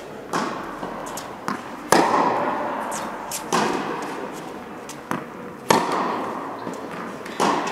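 Tennis rally: sharp racket strikes on the ball, about one every two seconds, with softer ball bounces between them, each ringing on in the reverberation of an indoor tennis hall.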